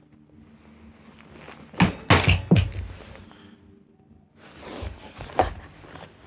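Three loud knocks in quick succession about two seconds in, then another knock about five and a half seconds in.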